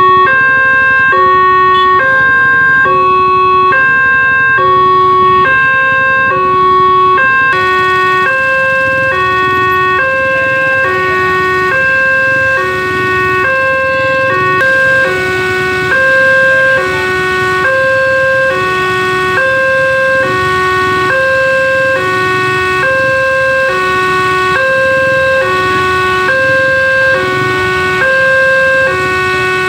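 Railroad level-crossing warning alarm from a loudspeaker on the crossing signal post: a loud two-tone electronic alarm that alternates high and low about once a second, steady throughout. It warns that a train is approaching.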